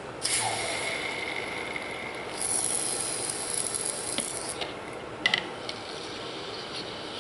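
Hot fire-assay button sizzling in a container of distilled water. There are two spells of hiss about two seconds each, the first carrying a thin steady whistle. A couple of sharp clicks follow about five seconds in.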